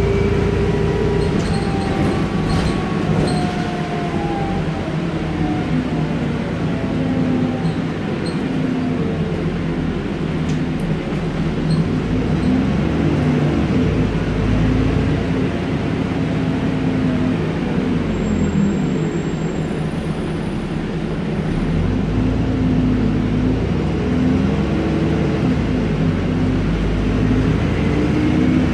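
Alexander Dennis Enviro 400 double-decker bus running in service, heard from the upper deck: a steady engine and drivetrain drone with a whine that falls in pitch in the first few seconds and again around the middle, and light interior rattles.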